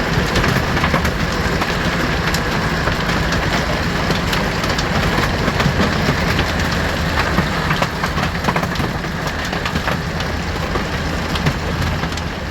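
Vehicle on the road: a steady engine and road-noise rumble with scattered clicks and rattles, cut off abruptly at the end.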